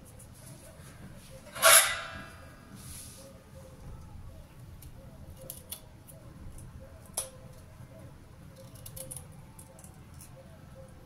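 Small scrapes and scattered light clicks of hand work on a raw beetroot as its skin is peeled off. A single louder, short sound about two seconds in stands out above the rest.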